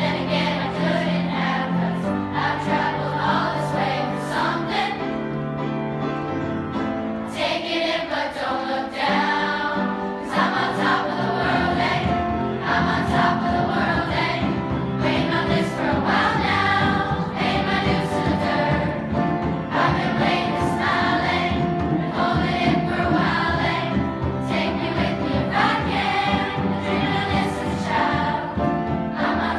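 Sixth-grade children's choir of girls and boys singing with upright piano accompaniment. The singing grows fuller and brighter about seven seconds in.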